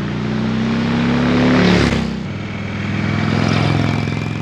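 2019 Indian Chieftain Dark Horse V-twin motorcycle passing close by. The engine note builds to a peak and drops as it goes past, about two seconds in. Then it cuts to a second approach with the engine pulling again.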